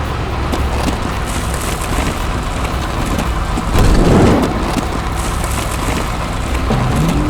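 Cartoon vehicle sound effects: a steady, loud rumbling noise like a heavy machine running, with a louder surge about four seconds in.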